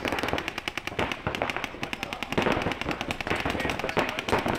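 Paintball markers firing in rapid streams, a fast crackle of about a dozen shots a second.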